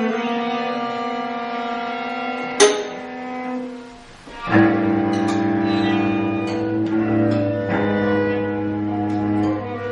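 Chamber string ensemble, cello among them, playing long sustained chords in a contemporary piece. A sharp struck accent comes about two and a half seconds in. After a brief fade, a new, lower and louder chord enters about halfway through, with small clicks scattered over it.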